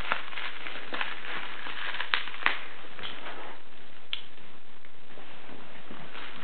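Plastic wrapping of a parcel being picked at and torn by hand: a few short sharp crinkles and crackles, the loudest about two and a half seconds in, over a steady hiss.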